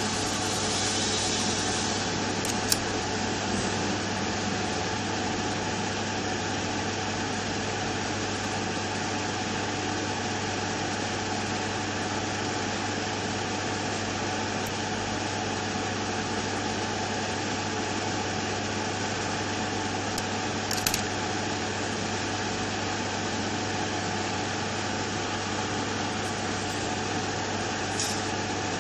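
Hot-air rework gun blowing steadily while preheating a circuit board and chip, a constant rushing hiss over a low hum. A few brief clicks stand out, one about two-thirds of the way through and one near the end.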